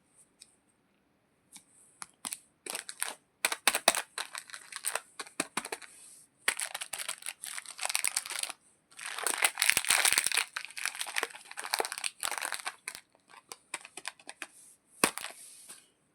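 A candy wrapper being crinkled and torn open by hand: spells of crackling with sharp snaps, longest in the middle, with a last short burst near the end.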